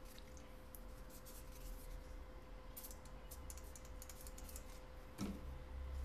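Light clicking and scratching of small tools being handled on a workbench, in irregular clusters, with one louder knock about five seconds in, over a steady low hum.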